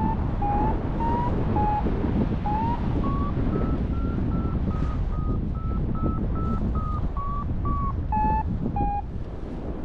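Paragliding variometer giving its climb tone: short beeps about two a second, rising in pitch over the first few seconds and sinking back, then stopping near the end; the pitch follows the rate of climb. Steady wind rush on the microphone underneath.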